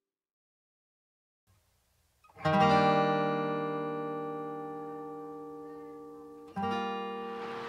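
Background music: after about two seconds of silence, a strummed acoustic guitar chord rings out and slowly fades, and a second chord is struck about four seconds later.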